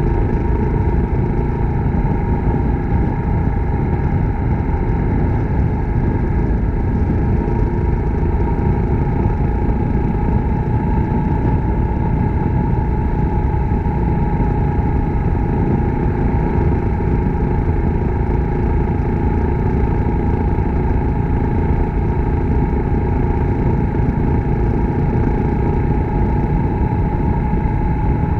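Suzuki Grass Tracker Big Boy's single-cylinder engine running steadily while riding at an even pace, with a constant low rumble and no change in pitch.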